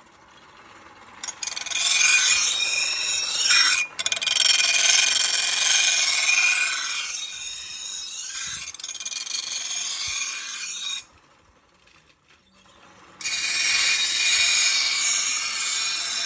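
Steel knife blade ground against a spinning grinding stone mounted on a bicycle: a loud, high grinding hiss with a thin whine in it. It starts about a second in, breaks off for about two seconds past the middle as the blade is lifted, then starts again.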